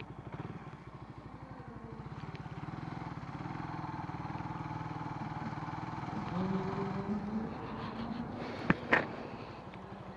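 Motorcycle engine running at low speed as the bike rolls along and slows to stop. Near the end there are two sharp clicks in quick succession.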